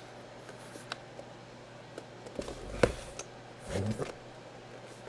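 A cardboard jersey box being handled on a tabletop: one sharp knock nearly three seconds in, then a duller thump and rustle about a second later, over a faint steady hum.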